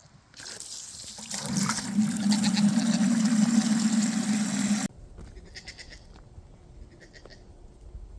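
Goat kid screaming during horn disbudding: one long, harsh, steady-pitched cry lasting about three and a half seconds that cuts off abruptly.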